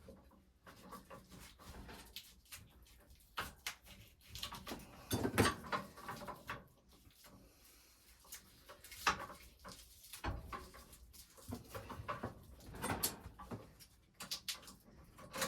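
Irregular knocks, clicks and scraping from hands handling metal stove parts and packaging as a new wood-burning stove is unpacked, with a few louder knocks spread through.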